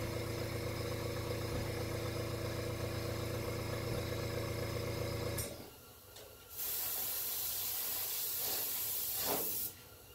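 A small airbrush air compressor runs with a steady motor hum, then shuts off about halfway through. About a second later the airbrush sprays paint with a steady high hiss for about three seconds, then stops when the trigger is released.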